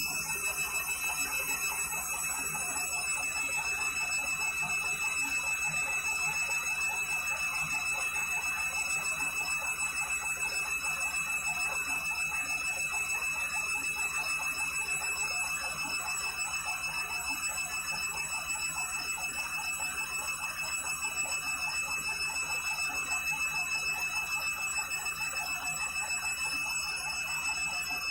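Candy front-loading washing machine on its final 400 rpm spin: the drum spinning steadily with a fast, even pulsing and a constant high motor whine.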